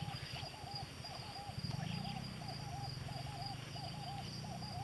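A short hooting animal call repeated evenly, about three times every two seconds, over a steady high insect chorus and a low hum.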